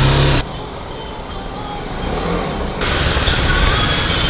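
BMW G 310 GS single-cylinder engine idling, a steady low rumble under street traffic noise. A loud rush of noise cuts off about half a second in and returns near the end.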